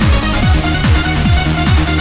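Trance music: a steady four-on-the-floor kick drum, a little over two beats a second, under sustained synth chords.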